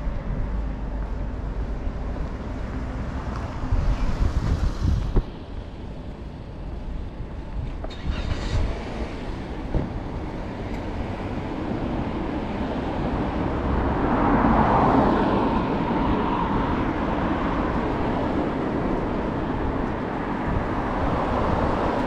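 Road traffic noise: a steady rumble of vehicles, with one louder vehicle swelling past about fourteen to seventeen seconds in.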